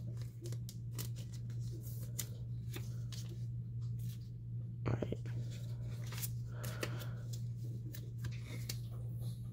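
A dog's mouth noises close to the microphone: a rapid, irregular run of small clicks and crackles, over a steady low hum.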